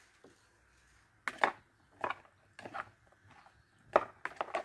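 Sliced raw potatoes being stirred with mayonnaise in a plastic bowl: about six short, irregular clacks and scrapes, starting about a second in.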